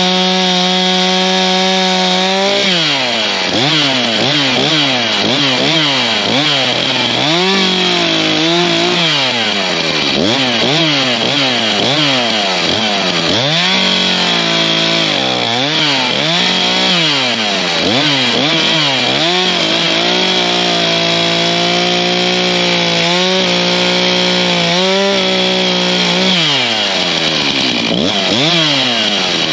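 STIHL chainsaw cutting up a felled weeping willow: the engine runs at a steady high pitch at first, then revs up and down again and again as it goes through the wood. It holds steadier for a few seconds in the later part and drops toward idle near the end.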